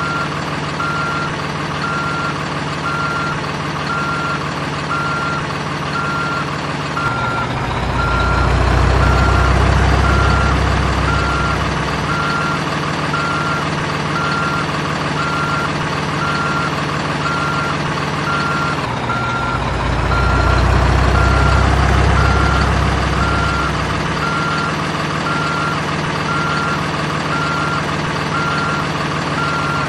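RC toy excavator's sound module playing a simulated diesel engine with a steady, repeating reversing beep. The engine note swells heavier twice, for about five seconds each time.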